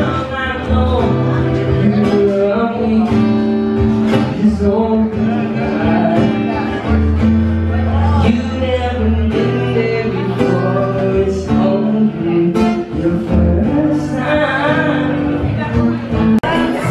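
A man singing with an acoustic guitar, played live by a duo through microphones.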